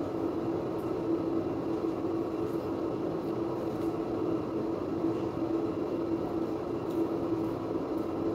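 Steady mechanical hum with a low drone that holds unchanged, from a running room appliance such as a fan motor. A few faint ticks sit on top of it.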